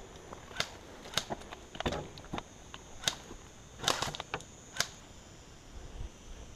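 Sharp, irregular clicks and knocks, about half a dozen spread over a few seconds, from a player moving up to a wooden pallet barricade and handling an airsoft rifle, over a steady high-pitched hum.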